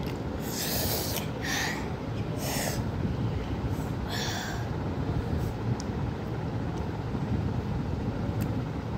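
A boy drawing short, sharp hissing breaths through his mouth and nose, about four in the first half, reacting to the burn of extremely spicy noodles, with a steady low rumble underneath.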